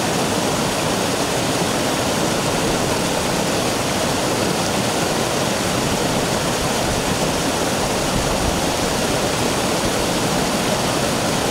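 Stream water rushing steadily over a rock slab.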